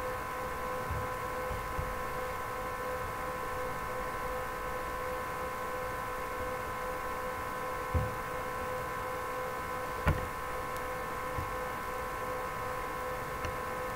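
Steady electrical hum made of several pitched tones. Two soft low thumps break it, about eight and ten seconds in, the second the louder.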